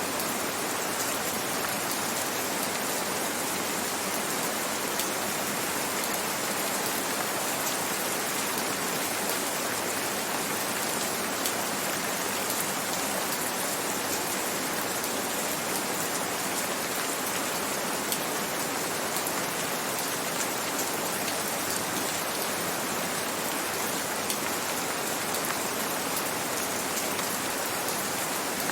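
Steady rain falling, with fine patter of drops, even in level throughout.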